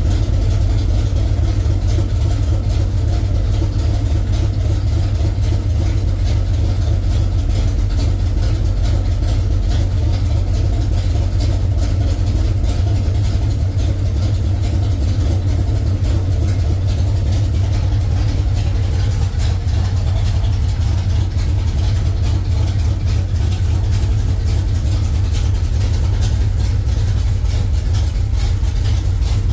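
Engine fitted with a FAST self-learning EFI fuel system, idling steadily.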